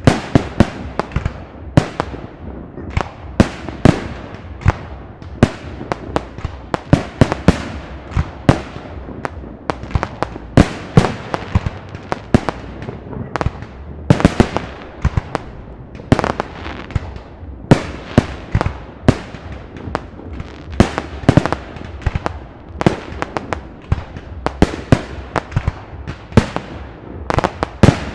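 Park fireworks display: shells bursting in a rapid, irregular string of sharp bangs, several a second, each trailing off in a short ringing tail.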